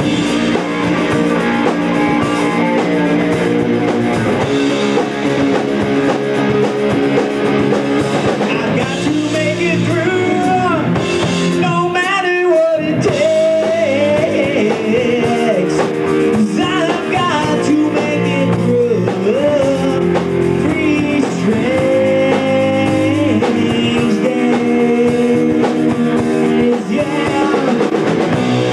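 Live rock band playing, with electric guitars and drums, and a man singing lead into a microphone.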